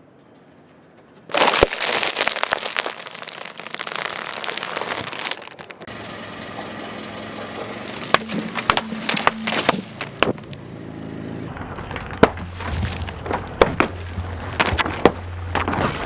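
A car tyre rolls onto a packet of sandwich cookies, and for about four seconds the cookies and the plastic wrapper crunch and crackle. Later the tyre runs over a row of foil juice pouches, which burst with a string of sharp pops over the low rumble of the car.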